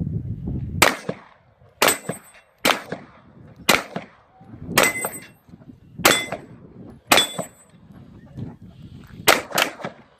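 Pistol shots fired one at a time about a second apart, nine in all, the last two in quick succession. Several shots are followed by a short metallic ring, typical of steel targets being hit.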